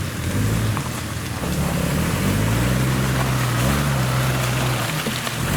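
Toyota Land Cruiser off-road truck's engine revving under load on a rock climb. The revs rise about a second and a half in, hold, then drop off briefly near the end before picking up again, over a steady hiss.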